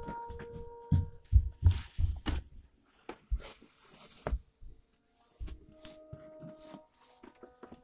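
Irregular low thumps and a brushing noise from a handheld phone being moved and bumped close to the microphone, with faint steady tones at the start and again later.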